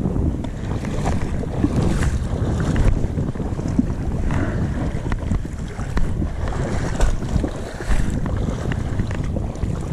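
Wind buffeting the camera microphone over rushing river water, a steady low rumble with scattered brief knocks and splashes.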